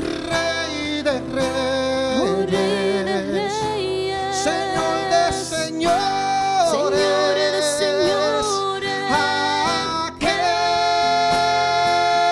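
A man and a woman singing a Spanish-language Christian worship song together, accompanied by a strummed acoustic guitar.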